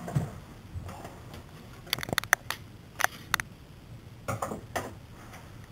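Scattered light clicks and taps of a hand fidgeting with small objects on a wooden dresser top, in short clusters about two seconds in and again about four and a half seconds in.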